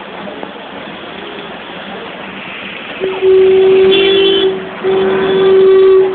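A vehicle horn sounds two long, loud honks, the first about three seconds in and the second after a short break, each more than a second long, over a steady rushing background.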